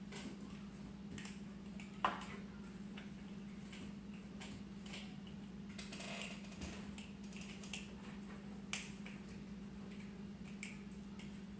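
Scattered light clicks and taps of small plastic toy pieces being handled, with one sharper click about two seconds in, over a steady low hum.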